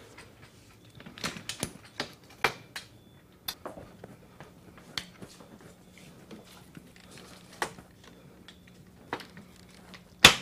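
Scattered sharp clicks and knocks from the corner fittings of a collapsible pop-up frame as its top side pieces are swung over and latched into the corners. The loudest is a single snap near the end as a corner piece locks in.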